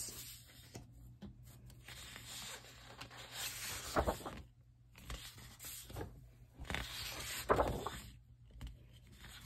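Sheets of patterned scrapbook paper being handled and flipped over, sliding against the stack in about five short papery swishes and rustles.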